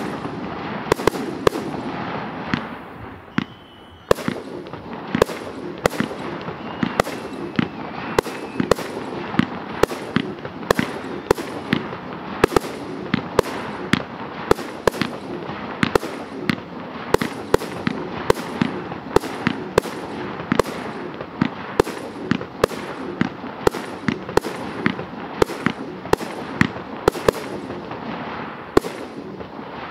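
Professional fireworks display: aerial bursts go off in rapid sharp bangs, about two a second, over continuous crackling, with a short lull about three seconds in.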